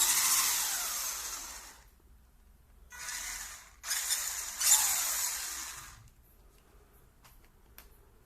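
Electric motor and gearbox of a 1/18-scale 4x4 RC car whining in three bursts as the throttle is worked, the pitch rising and falling with speed. It stops about six seconds in, followed by a few faint clicks.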